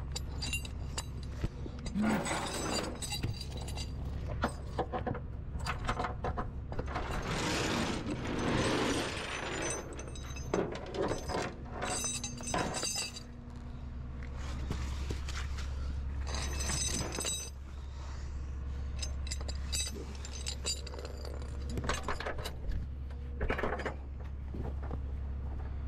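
Steel tow chains and hooks clinking and clanking as they are handled and hooked under a car, in irregular short rattles, over a steady low hum.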